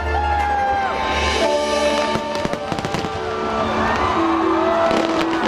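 Aerial fireworks shells bursting in many sharp, irregular bangs, over loud music with long held notes.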